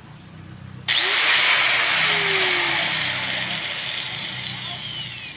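Repaired DCA angle grinder switched on, its motor spinning up abruptly about a second in with a loud whine that then slowly falls in pitch and fades. It runs again after its rusted armature, the cause of it not turning, was dealt with.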